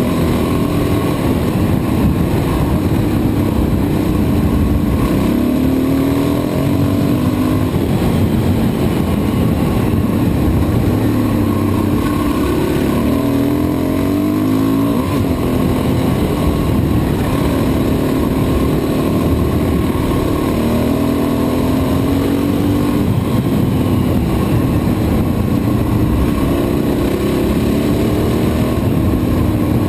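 Motorcycle engine running under way, its pitch rising and falling several times with the throttle and gear changes.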